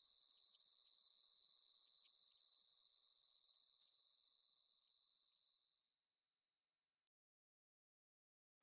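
Crickets chirping in a steady high-pitched pulse, about three chirps a second, fading out after about six seconds into silence.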